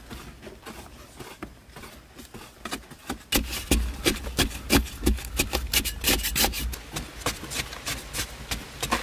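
Hand digging tool scraping and chopping into packed earth in quick, irregular strokes, with loose soil falling. The strokes get much louder about three seconds in.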